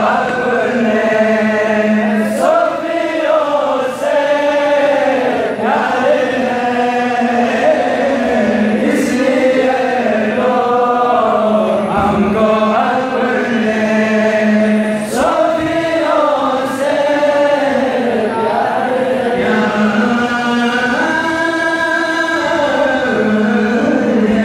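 A man chanting a Sufi devotional tarana into microphones, the melody rising and falling in long sung phrases over a steady low drone.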